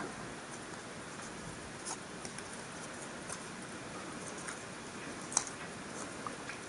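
Light rustling and small clicks of a folded card piece and tape being handled and pressed together by fingers, over a steady hiss. One sharper click about five seconds in.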